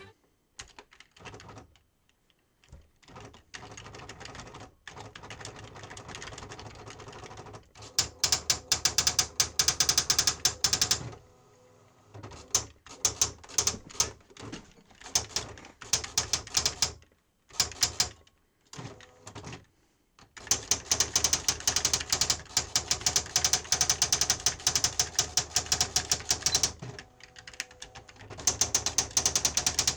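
Sharp PA-3000II daisywheel electronic typewriter being typed on, its high-pitched print strikes coming in rapid runs broken by short pauses. The strikes are softer for the first several seconds, then louder.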